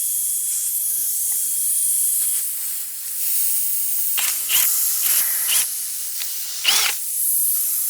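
Cordless power tool drilling out a tire's puncture hole: a steady high hiss, then three short bursts, each rising and falling in pitch.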